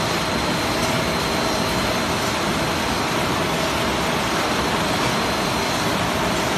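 Steady running noise of a facial-tissue packaging line: conveyor chains and their geared drive motors with the surrounding packaging machinery, plus a faint steady high-pitched whine.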